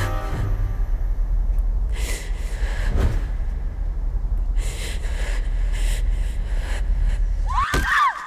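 Heavy gasping breaths of someone running, over a loud low rumbling drone. Near the end a brief warbling sound is heard, and the rumble cuts off abruptly.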